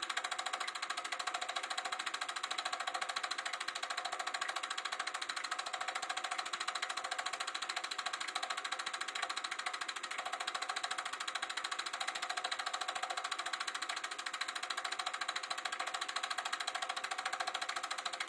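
Sankyo Dualux 1000 8mm film projector running, its mechanism making a rapid, even clatter over a steady hum.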